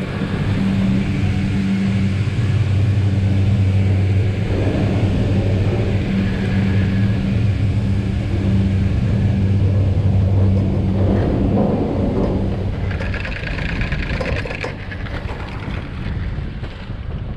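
A steady low mechanical hum over a rumble, which fades out about twelve seconds in.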